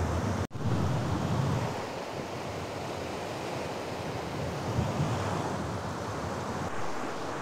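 Sea surf washing steadily, with wind buffeting the microphone in low gusts over the first couple of seconds. The sound cuts out for an instant about half a second in.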